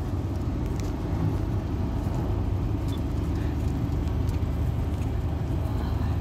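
Car engine and tyre noise heard from inside the cabin while driving: a steady low drone.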